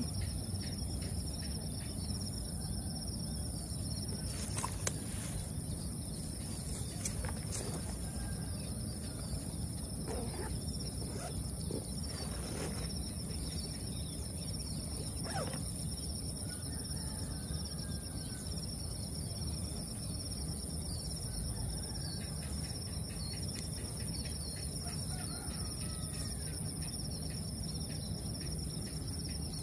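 Crickets or similar insects buzzing steadily at two high pitches over a low outdoor rumble, with faint bird chirps now and then. A few light clicks sound in the first half.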